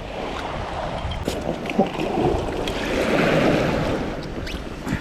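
Sea water sloshing and splashing against a small inflatable packraft, with wind on the microphone. The splashing swells up about three seconds in, with a few small knocks and clicks.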